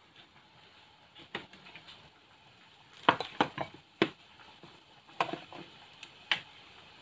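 Sliced onions frying in a little oil in a nonstick pan: a faint sizzle with scattered sharp crackles and clicks, bunched mostly a few seconds in.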